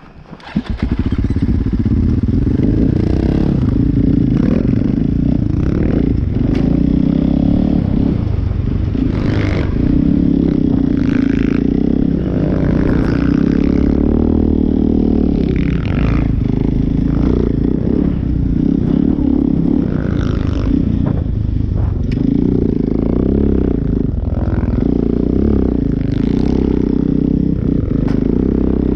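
A tracked snow machine's engine running hard under load, revving up and down without a break. It comes in loud about a second in.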